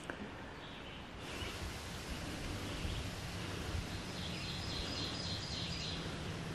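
Outdoor woodland ambience: a steady rustling hiss with faint birdsong, and a quick run of high chirps about four seconds in.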